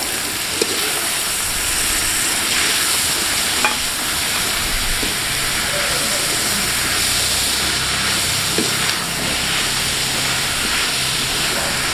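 Chopped vegetables sizzling in hot oil in a large metal kadai, a steady hiss, while a metal spatula stirs and tosses them with a few light clicks and scrapes against the pan.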